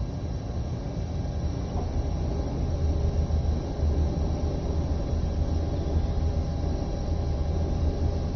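Three-wheeled motorcycle engines idling in traffic: a steady low rumble, with a few faint steady tones over it.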